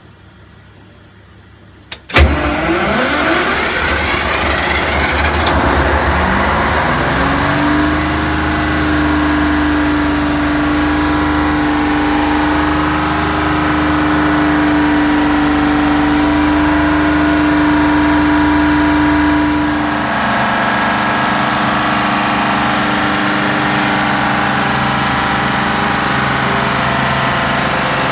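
A Detroit Diesel 12V71 two-stroke V12 diesel in a standby generator set is started by the panel switch: a click, then about two seconds in the engine fires with a sudden loud burst. Over the next several seconds it speeds up, with a whine rising in pitch, and then runs steadily at speed.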